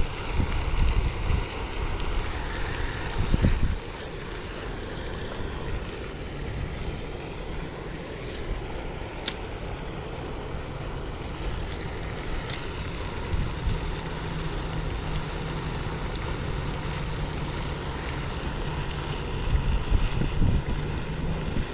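Wind buffeting the microphone outdoors, in gusts that are heaviest at the start and again near the end. Two short sharp clicks come a few seconds apart around the middle, and a faint steady low hum sets in a little past halfway.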